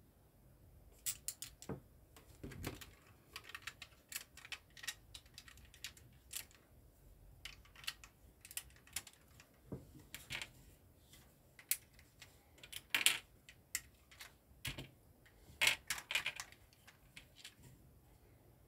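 Plastic LEGO bricks being handled and pressed together onto a small model car: a run of irregular sharp clicks and snaps, with a few louder snaps in the latter half.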